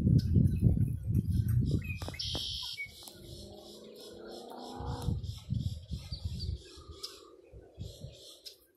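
Birds chirping and calling, with a sharp high chirp about two seconds in and a longer pitched call after it. Wind rumbles on the microphone in gusts, loudest in the first two seconds and again around five seconds.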